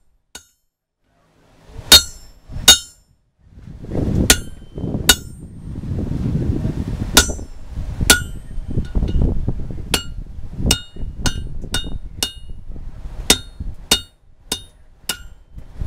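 Hand hammer striking red-hot coil-spring steel laid over a hardy cutter in the anvil, cutting the axe head off the bar. There are about fifteen sharp, ringing blows at uneven spacing, coming quicker near the end, with a low rumble beneath them.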